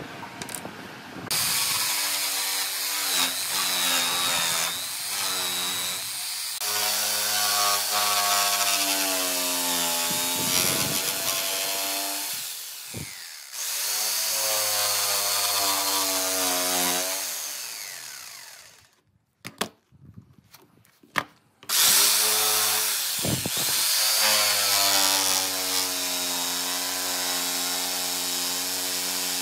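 Electric jigsaw cutting through a wooden board, its motor pitch wavering as the blade works along a curve. It starts about a second in, winds down a little past halfway and stops for a couple of seconds with a few light clicks, then starts again and cuts on.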